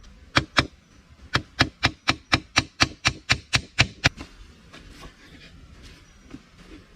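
A series of sharp blows: two close together, then about a dozen more at roughly four a second, stopping about four seconds in.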